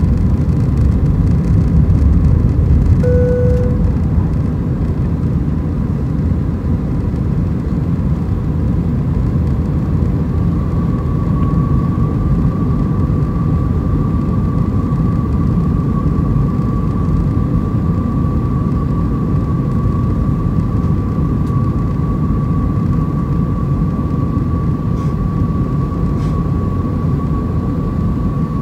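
Airbus A320 cabin noise by the wing on approach, flaps extended: a steady low rumble of airflow and the CFM56-5A engines. A brief tone sounds about three seconds in, and a steady high whine comes in about a third of the way through and holds.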